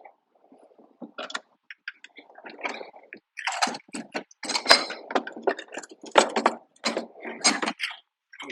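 Sandpaper rubbed by hand over freshly cut wood in quick, irregular strokes, smoothing away splinters. A few light scrapes at first, then a dense run of strokes from about three seconds in until near the end.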